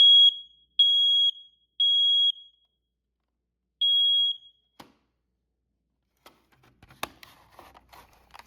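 SA710CN smoke alarm sounding its test alarm: three loud, high-pitched beeps about a second apart, a pause, then a fourth beep starting the next round of the temporal-three evacuation pattern. A click follows soon after, then faint clicking and rustling of handling near the end.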